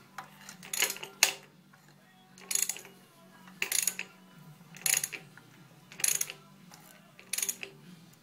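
Ratchet wrench on a 36 mm socket on the crankshaft, clicking in short bursts about once a second, seven times, as the engine is turned over by hand. A low steady hum runs underneath.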